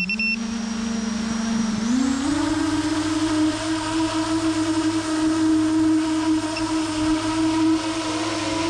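BrotherHobby Returner R3 2207 1660Kv brushless motors spinning 7-inch propellers on a long-range quadcopter, heard from its onboard camera: a steady motor whine over the rush of prop wash, stepping up in pitch about two seconds in as the throttle is raised, then holding steady in flight. A short high beep sounds at the very start.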